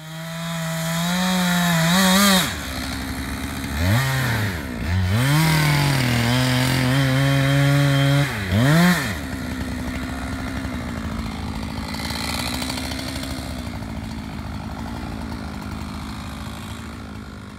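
Two-stroke chainsaw engine revving up and dropping back several times, held at high speed for a few seconds in the middle, then running lower and steadier before fading out near the end.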